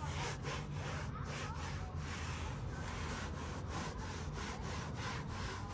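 White microfiber towel rubbing over a Toyota Tacoma's textured plastic interior door panel as a vinyl and plastic dressing is worked in. It is a scratchy rubbing in quick back-and-forth strokes, with brief breaks about two or three times a second where the stroke turns.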